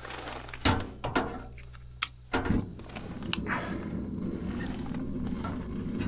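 Sharp clicks of a battery-powered electric lighter being worked in freezing cold, then a thump about two and a half seconds in, after which a steady low hiss and hum runs on as a small flame burns.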